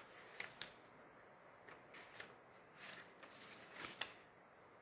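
Near silence, with a few faint scattered clicks and rustles from oracle cards being handled.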